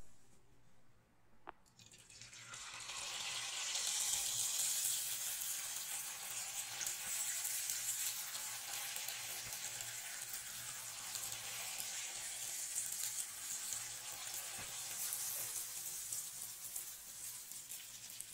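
Jalebi batter frying in hot oil in a pan, a steady sizzling hiss that builds up over the first few seconds as the batter goes into the oil.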